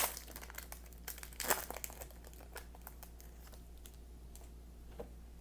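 A trading card pack wrapper being torn open and crinkled, in crackly bursts over the first couple of seconds, then fainter rustling of handled cards with a single click near the end.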